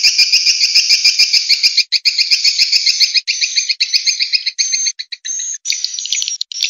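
Swiftlet calling sound, the kind played to lure swiftlets into a bird house: rapid trains of short, high twittering chirps, about ten a second, with brief breaks.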